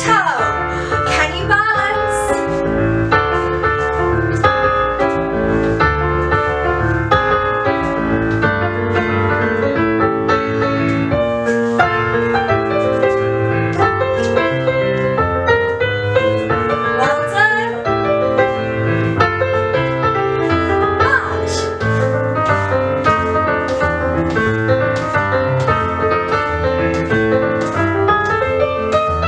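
Upbeat piano music with a steady beat, played as accompaniment for children's movement and dance.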